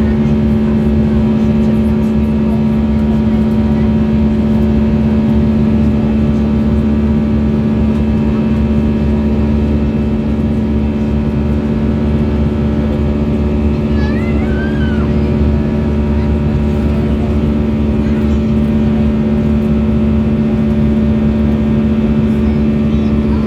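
Airbus A320 jet engines and airflow heard inside the cabin: a steady, unchanging drone with a constant hum of several held tones.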